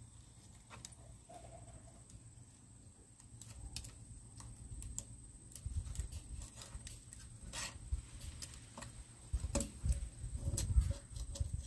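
Irregular clicks and light metal knocks from handling a clamp-on hand-crank chain sharpener and the saw chain as the jig is adjusted, growing busier in the second half with the loudest knocks near the end.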